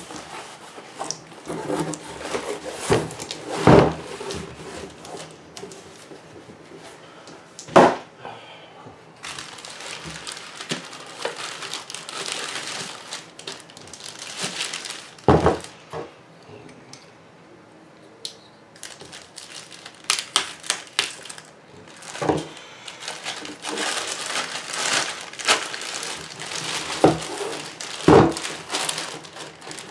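A thin plastic bag crinkling and rustling as a hard-shell camera case wrapped in it is handled and unwrapped, with about five sharp knocks spread through.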